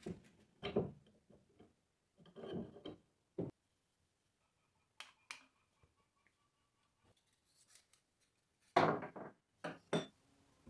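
Hand plane with a sharp blade taking short cutting strokes across wood, several separate strokes with pauses between them, and a few sharp clicks of the tool in between.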